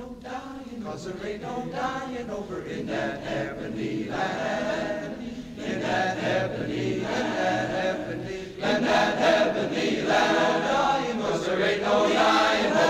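Choir singing a gospel spiritual, growing louder about two-thirds of the way through.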